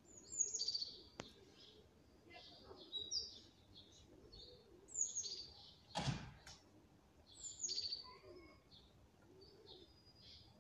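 Small birds chirping in short, bright, falling phrases, repeated every two seconds or so, with a single sharp knock about six seconds in.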